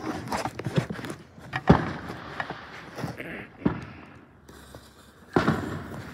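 Fireworks going off close by: a few sharp bangs, the loudest a little under two seconds in, others near four and five and a half seconds, over a noisy background.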